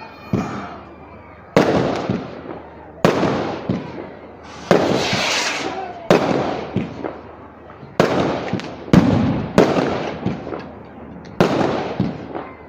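Fireworks going off: about nine sharp bangs at uneven intervals, each trailing off in a crackle.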